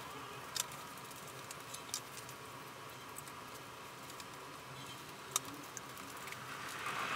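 Foam pieces being handled and pressed onto a foamboard wing on a tabletop: faint rubbing and handling noise with a few sharp clicks and taps, the clearest about half a second, two seconds and five and a half seconds in, over a faint steady hum.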